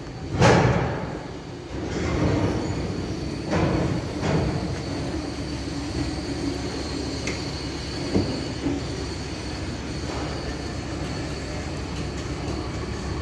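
Steady railway-depot rumble around a VL10 electric locomotive, with a faint high whine through the middle and a few short metallic knocks.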